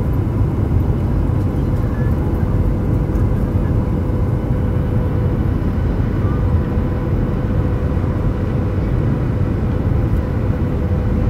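Jet airliner cabin noise on the descent to land: a steady low rumble of engines and airflow with a faint constant whine, heard from inside the cabin.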